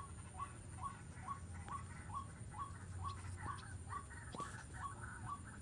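A bird calls a short, squeaky note over and over at an even pace, about two to three times a second, over a low steady hum.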